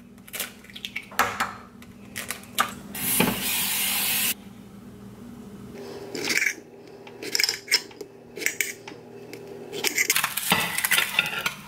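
Kitchen handling sounds while breakfast is made: an egg cracked on a bowl, a short hiss that stops abruptly, then a kitchen knife tapping and scraping on a ceramic plate as strawberries are sliced, over a faint steady hum.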